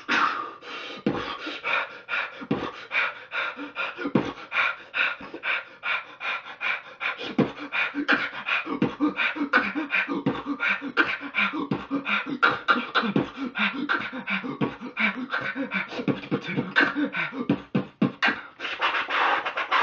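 A person beatboxing: a fast, continuous stream of percussive mouth and breath sounds with a steady rhythm.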